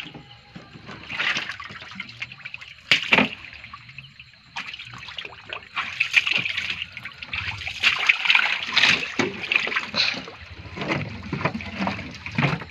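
Water splashing and sloshing in a boat's flooded fish hold full of live fish, in irregular splashes: a sharp one about three seconds in and a busier run of splashing in the second half.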